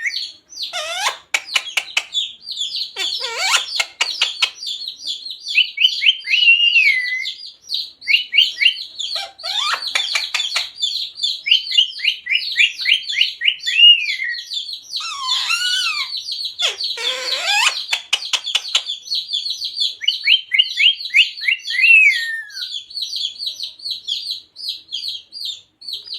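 Rose-ringed (ring-necked) parakeet chattering in fast runs of high chirps, broken about five times by short harsh squawks.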